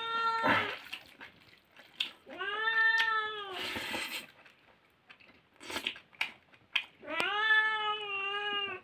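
A domestic cat meowing: three long, drawn-out meows, one fading out about half a second in, one around three seconds in, and one near the end. Soft clicks and smacks of eating by hand come between them.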